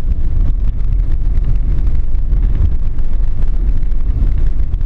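Loud, steady low rumble of a vehicle on the move, with wind buffeting the microphone and irregular crackling.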